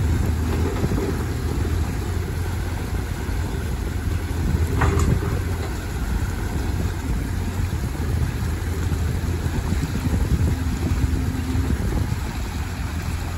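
Bobcat E35 mini excavator's diesel engine running steadily as the operator works the arm, with water rushing through the breached beaver dam. A short sharp sound stands out about five seconds in.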